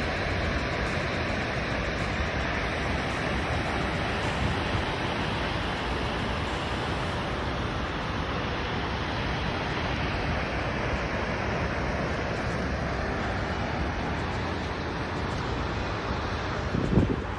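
Steady rushing roar of the Shoshone Falls waterfall, an even noise with no changes, mixed with wind on the microphone. A few short low thumps come near the end.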